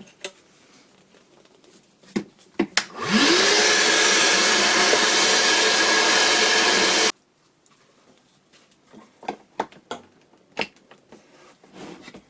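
A few clicks, then a cordless wet and dry workshop vacuum switches on, its motor whining up in pitch within a second and running steadily for about four seconds before cutting off abruptly. Light handling clicks follow.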